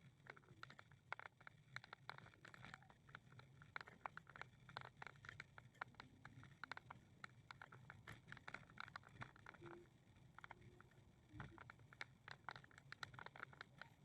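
Faint footsteps and small clicks on a walking path, irregular and several a second, over a low steady hum.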